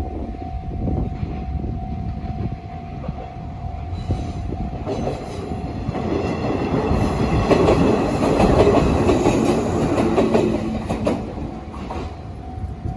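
Japanese level-crossing alarm ringing with the electronic 'Tohoku-type' tone while a Joshin Electric Railway train passes over the crossing. The train's wheels clatter over the rail joints, building from about four seconds in, loudest in the middle and fading near the end.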